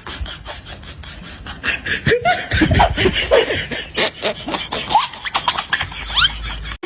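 People laughing and snickering, in short broken bursts.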